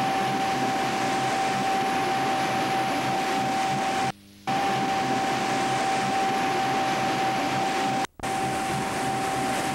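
A river cruise boat's engine and churning propeller wash, a steady loud rushing noise with a constant high whine through it, cut off briefly twice.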